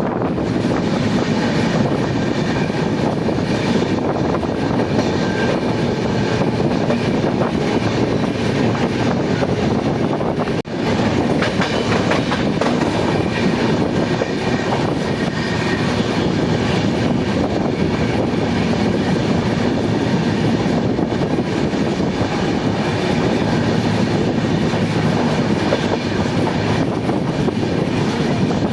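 Passenger train running on the track: a steady rumble and clatter of wheels on the rails, with a brief drop in level about ten seconds in.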